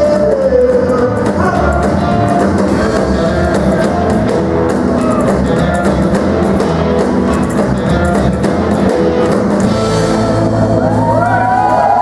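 Live rock 'n' roll band playing: electric and acoustic guitars, upright double bass, drum kit and keyboard, with a male lead vocal. Near the end the drum beat drops away and the band holds long notes.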